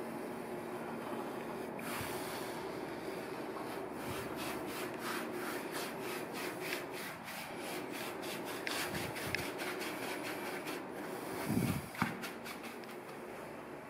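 Large flat spalter brush scrubbing tinted varnish over a plastered wall: a scratchy rubbing of bristles on plaster in quick back-and-forth strokes, about three a second. A dull knock near the end.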